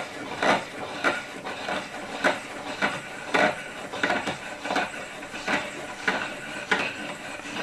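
Threaded adjusting bolt of a home-made wooden router jig being hand-turned, creaking and clicking in its nuts and brackets about twice a second as the swinging cradle is wound across. The mechanism is dry and could do with a little oil.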